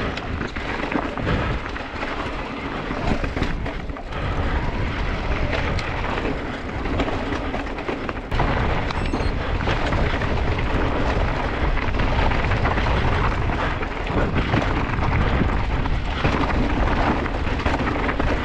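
Mountain bike ridden fast over rocky singletrack, heard through an action camera: wind rumbling on the microphone over the tyres crunching and the bike rattling on rocks and pebbles. It gets louder about halfway through.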